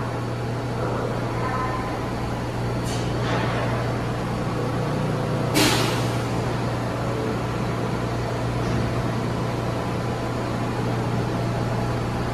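R143 subway train standing in the station with a steady low hum, broken by short hisses of air from its pneumatic brake system: a faint one about three seconds in and a sharp, louder one a little past halfway.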